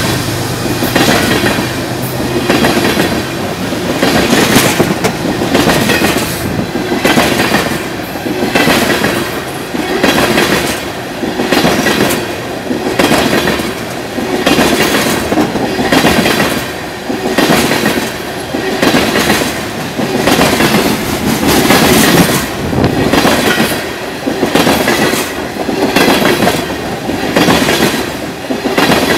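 Railroad tank cars of a freight train rolling past close by, the wheels clacking in a steady rhythm over the rail joints. The sound swells and dips every couple of seconds as each set of wheels goes by.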